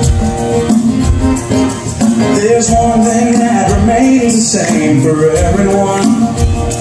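Band music with a steady beat: the instrumental intro of a song, just before the vocal comes in.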